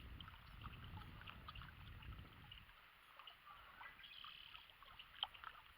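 Faint riverside ambience: quiet moving water with scattered short bird chirps, a low rumble in the first couple of seconds, and one sharp click about five seconds in.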